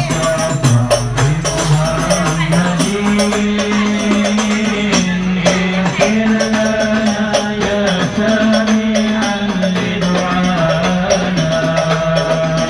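A group of voices chanting an Islamic devotional song (selawat, blessings on the Prophet) in unison on long held notes, with steady frame-drum beats and rattling jingles.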